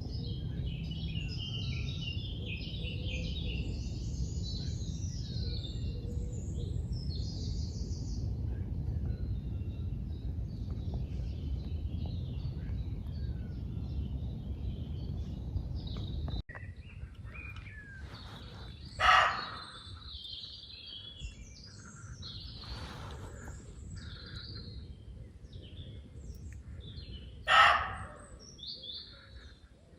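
Woodland birds chirping and singing in many short calls over a low steady background. Two brief louder sounds stand out, one a little past the middle and one near the end.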